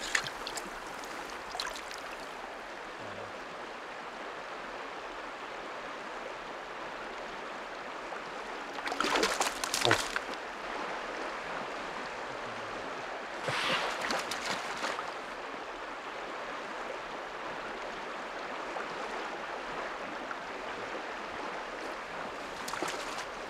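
River water rushing steadily over a riffle, with two louder bursts of noise about nine and thirteen seconds in.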